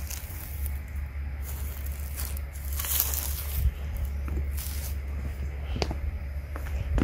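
Footsteps crunching on dry grass and dead leaves, roughly one a second and uneven, over a steady low rumble of wind on the microphone.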